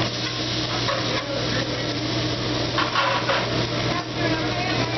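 Shrimp and scallops sizzling on a hibachi flat-top griddle, over a steady low hum and faint restaurant chatter.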